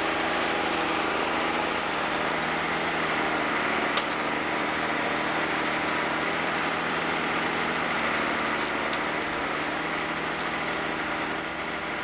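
Logging skidder's diesel engine running steadily at a constant speed.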